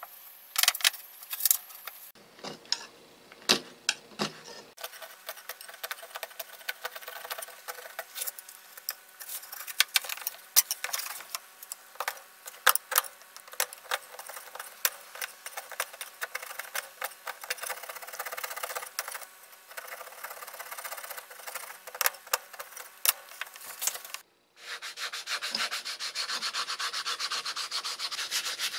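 A flat metal scraper blade scraping flaking coating off a black tool handle in many short strokes with sharp clicks. About four seconds before the end it gives way to a steady, louder hiss of 220-grit aluminium oxide sandpaper rubbing the handle.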